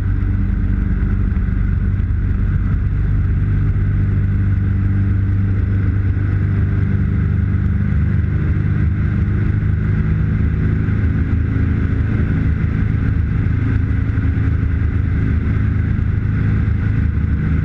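Turbocharged Subaru EA81 engine of a Dragonfly Mk II homebuilt, driving a three-blade Warp Drive propeller directly, running steadily at takeoff power through the takeoff roll and lift-off, heard from inside the cockpit.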